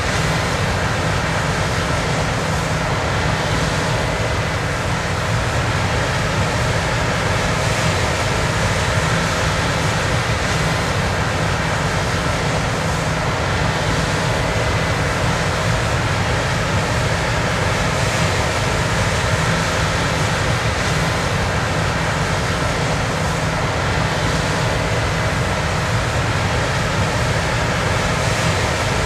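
Steady, unbroken machine noise with a deep low rumble and a few faint steady tones held throughout.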